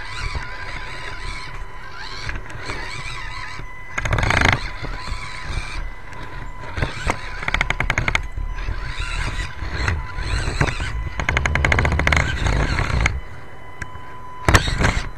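A 1/24-scale SCX24 rock crawler climbing a steep wooden ramp, heard from on board: its small electric drive whines under constant clattering and rattling, with runs of rapid ticking and two louder noisy bursts, one about four seconds in and one near the end.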